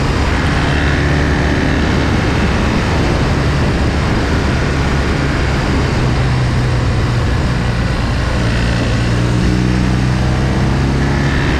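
Motorcycle engine running steadily while riding, under a constant rush of wind and road noise. The engine note shifts slightly in the last few seconds.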